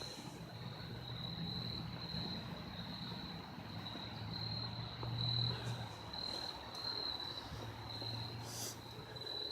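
A steady, high-pitched insect trill, cricket-like, continuing throughout over a low steady hum.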